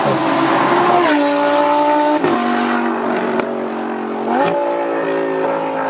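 Lamborghini Huracan LP610-4 Spyder's 5.2-litre V10 through a Fi valvetronic catback exhaust with the valves open, accelerating hard. The engine note drops sharply at gear changes about one and two seconds in, and there are two short sharp cracks in the second half.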